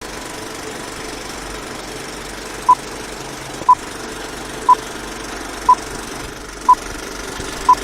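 Six short electronic beeps at the same pitch, one a second, starting a few seconds in, over a steady engine-like hum.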